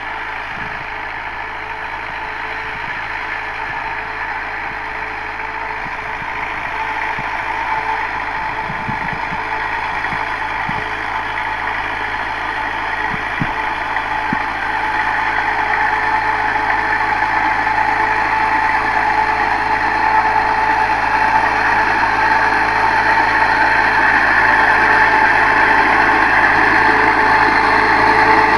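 NH Dabang 85 tractor's diesel engine running steadily under load as it pulls a disc harrow through ploughed soil, growing steadily louder as it comes closer. A few faint knocks come through about a third and half of the way in.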